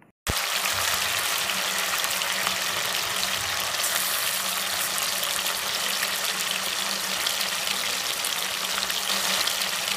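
Marinated chicken pieces deep-frying in hot oil in a kadai: a steady, dense sizzle and crackle of bubbling oil that starts abruptly a moment in. The chicken has just gone into the hot oil, so the frying is vigorous.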